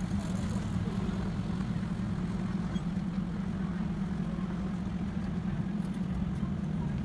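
Steady low hum of an idling engine, running evenly without change.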